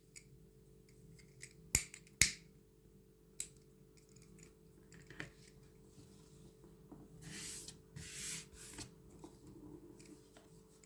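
Two sharp snips of scissors about two seconds in, cutting through 5 mm polyester cord, followed by soft rustling of the cord being handled.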